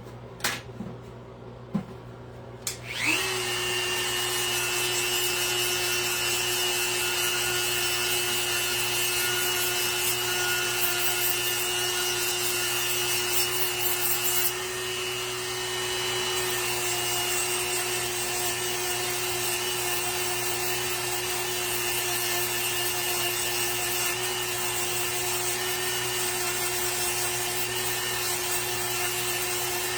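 A couple of light clicks, then a small high-speed rotary power tool switches on about three seconds in, spins up and runs steadily while shaping wood, briefly dropping in level about halfway.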